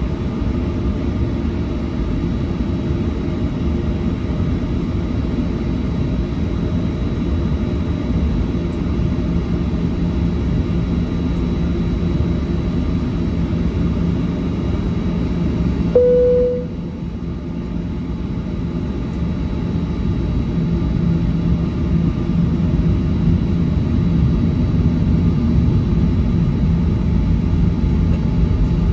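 Airliner cabin noise while taxiing: a steady low rumble of the jet engines and rolling aircraft. About halfway through there is a short single tone, after which the rumble drops briefly and then builds again toward the end.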